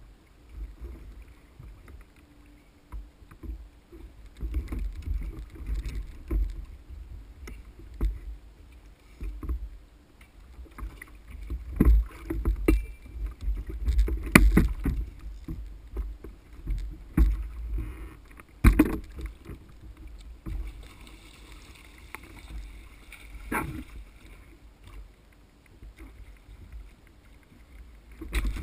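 Fishing kayak on open ocean: water sloshing against the hull and gusty wind rumbling on the kayak-mounted microphone, broken by several sharp knocks as gear strikes the kayak.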